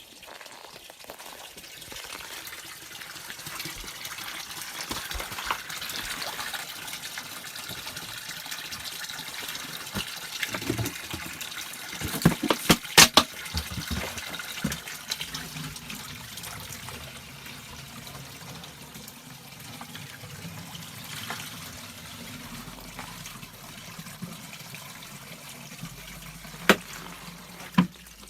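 Spring water running and splashing steadily, with a cluster of sharp knocks about halfway through and one more near the end.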